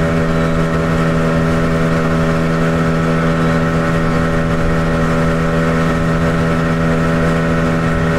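Inflatable dinghy's outboard motor running at a steady cruising speed, its note holding constant.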